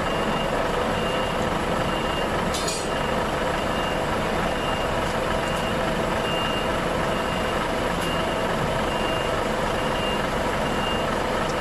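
Reach stacker's diesel engine running steadily as it holds and lowers a heavy slung load, with its warning beeper sounding a short high beep about every 0.7 s. A brief clank about two and a half seconds in.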